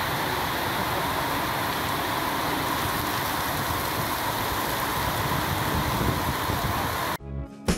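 Heavy tropical downpour: a steady hiss of rain pouring onto pavement and a canopy. It cuts off suddenly near the end, where guitar music begins.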